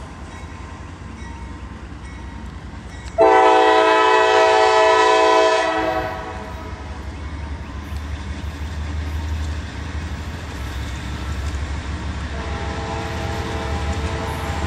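Diesel locomotive air horn sounding a chord of several steady tones: faint at first, then one loud blast about three seconds in that lasts about two and a half seconds and stops sharply. A low rumble of the passing train follows, and the horn chord sounds again, fainter, near the end.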